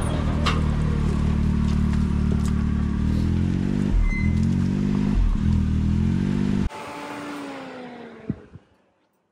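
Can-Am Maverick X3's turbocharged three-cylinder engine idling at low speed while the side-by-side is inched up onto the trailer, its revs dipping briefly twice. About two-thirds of the way through it is switched off, leaving a falling whine that fades away, and there is a light click near the end.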